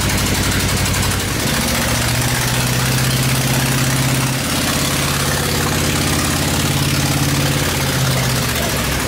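Freshly built V8 engine running, its revs raised about a second in and let back down near the end. It is firing on only seven cylinders: cylinder number one has no spark plug in it and blows out of the open plug hole, which sounds like an exhaust leak and makes it very loud.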